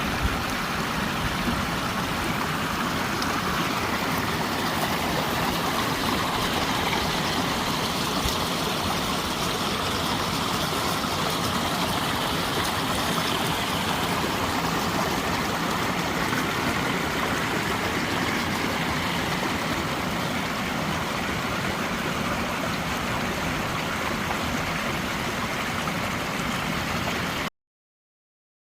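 A mountain stream flowing over rocks, a steady rushing of water that cuts off suddenly near the end.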